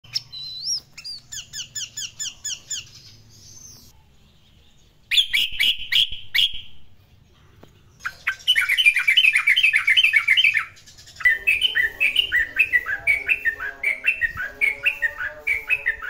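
Yellow-vented bulbul (trucukan) calling in short runs of quick, repeated chirps, with abrupt breaks between the runs.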